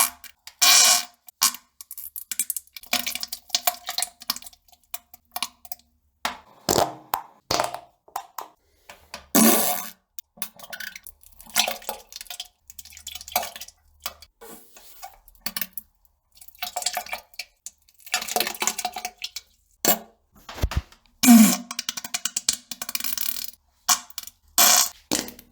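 A long run of short fart and splattering bowel-movement sounds, one irregular burst after another, some with a low pitched buzz.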